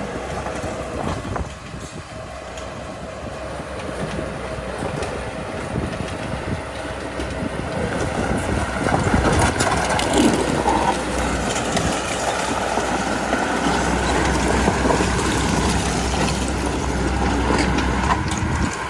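Komatsu D37P crawler bulldozer working: its diesel engine running with a clatter of steel tracks, building in loudness through the first half.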